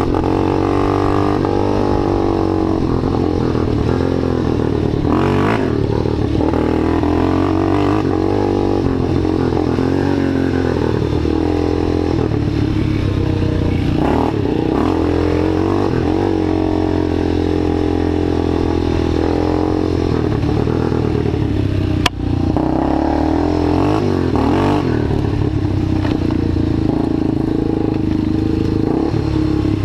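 Small ATV engine running with the throttle rising and falling, as when the quad is being ridden, with some clatter. One sharp click about two-thirds of the way through.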